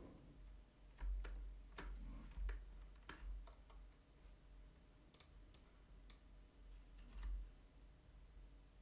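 Irregular clicks of a computer mouse and keyboard, about a dozen in all, most of them in the first four seconds and a few sharper ones around five to seven seconds in.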